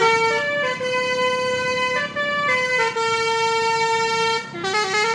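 Coach bus's musical multi-tone air horn (an Indonesian 'telolet' horn) playing a tune: long held notes that step up and down in pitch, with a quick run of short notes near the end.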